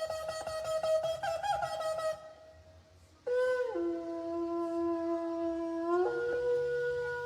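Shofar (ram's horn) blasts. A rapidly pulsing blast that jumps up in pitch near its end breaks off about two seconds in. After a pause of about a second, a long held blast starts, drops lower, then steps up to a higher note about six seconds in.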